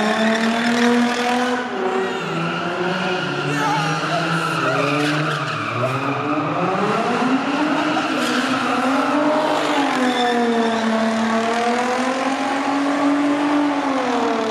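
Car engine revving hard at high rpm while its tyres spin and squeal in a burnout; the engine pitch rises and falls with the throttle, dipping about six seconds in, then climbing and holding high.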